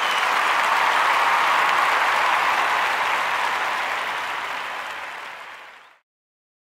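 Applause, a dense even clatter that swells, then fades out and stops about six seconds in.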